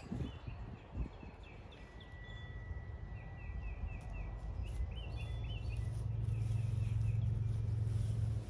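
Birds calling outdoors in a long run of short repeated chirps, with a thin held whistle note partway through. A low steady rumble builds up from about halfway and is the loudest sound near the end.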